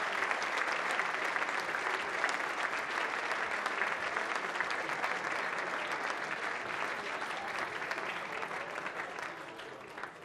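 A large seated audience applauding, a dense patter of many hands clapping that slowly thins and dies away near the end.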